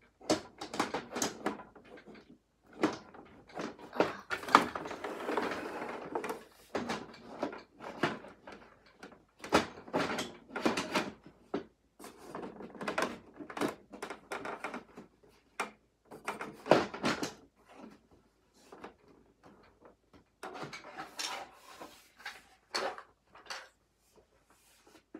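Hard plastic parts of an L.O.L. Surprise O.M.G. Glamper toy camper being handled: irregular clicks, knocks and rattles as its roof and pieces are opened and moved, with a longer rustling stretch about four to six seconds in.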